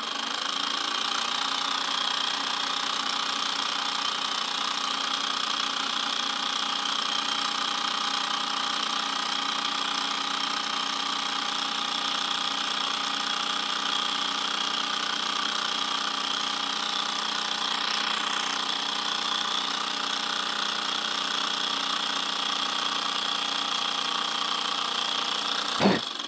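Homemade syringe-piston steam engine with a soda-can boiler and CD flywheel running fast: a steady, rapid mechanical rattle-buzz from the piston and crank. It cuts off near the end.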